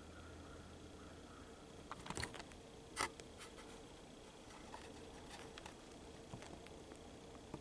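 Faint scratching and clicking of hands handling the camera, with a cluster of clicks about two seconds in and a sharper click about a second later, over a quiet steady hiss.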